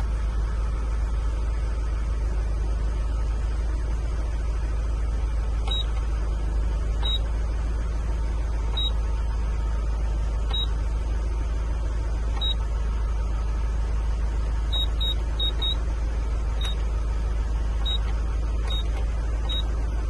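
Steady low rumble of the Iveco Daily's 3.0-litre diesel van engine running, with short high-pitched beeps now and then at uneven intervals, several in quick succession about two-thirds of the way through.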